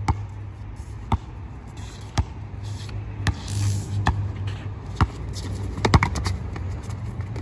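Basketball being dribbled on an outdoor hard court, bouncing about once a second, with a quicker run of several bounces near the end.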